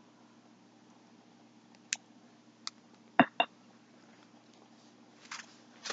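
A few sharp clicks and taps from yarn and its plastic packaging being handled, the loudest a quick double click a little past the middle, with a soft plastic rustle starting near the end.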